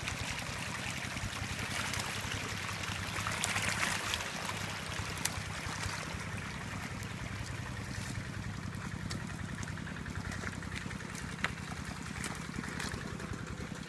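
Engine-driven water pump running steadily with a low drone while it drains the pond, over water trickling through the mud. Two sharp clicks, one about five seconds in and one near the end.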